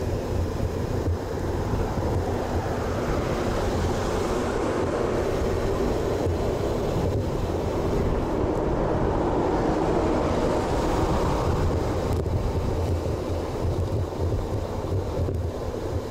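Wind rushing over the microphone of a bike-mounted action camera while riding at about 30 km/h, a steady noise that swells a little about halfway through.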